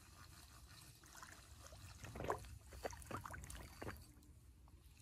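Faint splashing of a hooked brook trout being reeled in to the shore, a few short splashes about two to four seconds in.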